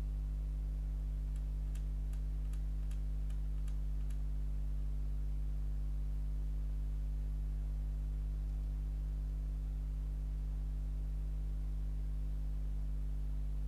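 Steady low mains hum made of several fixed tones, picked up by the recording microphone. A run of about eight faint ticks comes between about one and a half and four seconds in.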